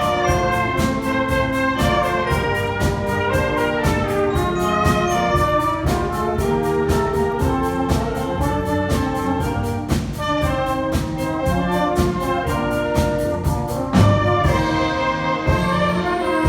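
School wind band playing live, brass carrying the melody over a steady beat, with a louder low hit about fourteen seconds in.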